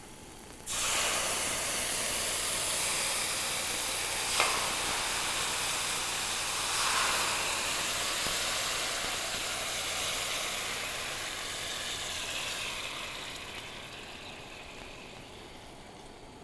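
Marinade poured into a hot stainless steel pan of pan-fried tofu, sizzling and steaming. It starts suddenly about a second in and slowly dies down as the liquid settles into a simmer, with a light tap around four seconds in.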